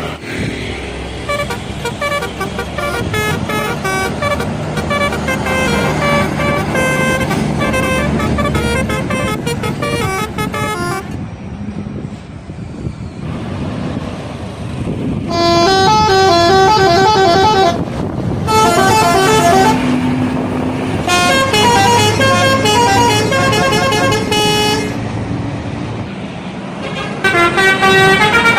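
Indonesian bus telolet horns, multi-trumpet air horns playing quick stepping melodies one after another. A lull of a few seconds comes near the middle, and then the tunes come back louder.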